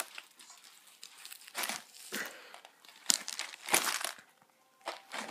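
Plastic wrapping crinkling in short, irregular bursts as it is handled and pulled open, with quiet gaps between.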